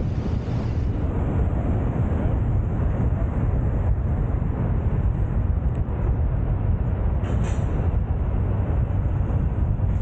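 Steady low rumble of road and traffic noise, with wind on the microphone of a car-roof-mounted 360 camera, as the car drives through city streets. A brief hiss about seven seconds in.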